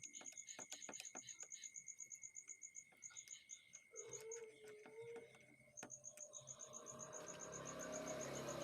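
Faint insect chirping in a fast, even pulse, about ten chirps a second, with a scatter of light clicks in the first three seconds. A broad wash of noise builds over the last two seconds.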